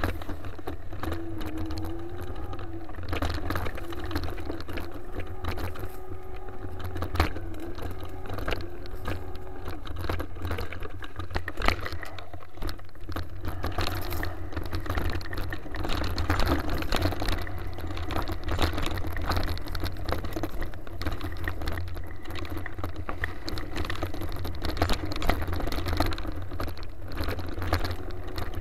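Mountain bike riding fast over a dirt singletrack trail, the bike and camera rattling and knocking over the bumps, with a steady wind rumble on the microphone. A faint wavering hum comes and goes in the first part and again near the end.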